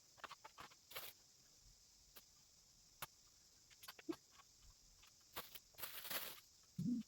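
Plastic slot-car track pieces being handled and clicked together: scattered light clicks and taps, with a stretch of rustling about two-thirds through and a brief low hum near the end.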